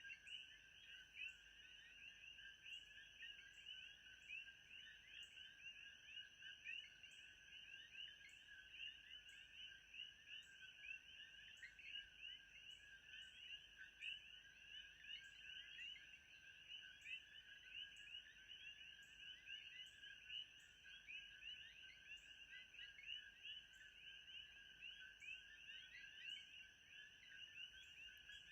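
Faint, steady nature-ambience chorus of many overlapping chirping animals, like frogs and insects at night. A thin high whine holds underneath, with soft ticks a little faster than once a second.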